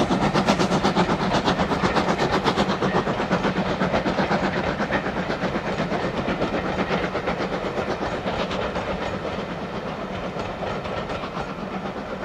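Passenger coaches of a steam train rolling past, wheels clattering rhythmically over the rail joints. The sound slowly fades as the train draws away.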